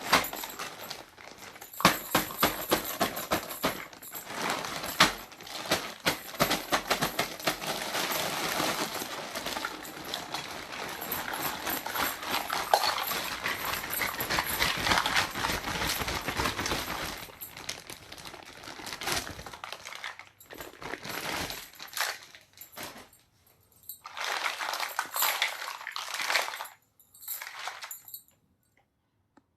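Small plastic toy pieces and their plastic packaging being handled and unpacked: crinkling with many light clicks and taps. It is dense for the first seventeen seconds or so, then comes in short separate bursts with pauses between.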